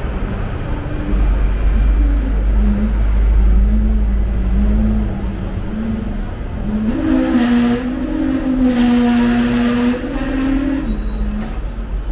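Running noise of a Hong Kong double-decker tram: a low rumble and a wavering motor hum as it travels. The noise swells for a few seconds past the middle with passing traffic.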